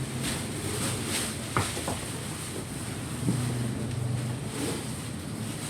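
Steady low rumbling noise, like handling or wind on the microphone, with a couple of short sharp sounds about a second and a half in and faint muffled voices in the background.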